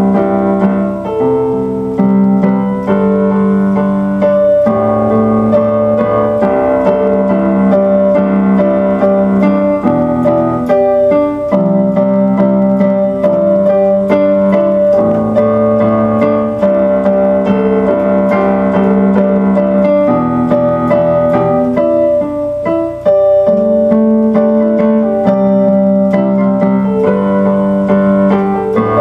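Piano music: chords change every second or two over a sustained higher note.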